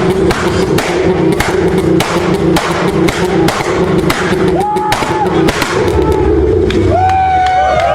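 A car engine held on a two-step launch limiter: the engine note chops on and off as the ignition cuts, with a steady run of sharp exhaust bangs. The popping stops about six seconds in, leaving a lower engine rumble, and near the end a high whine glides up and down.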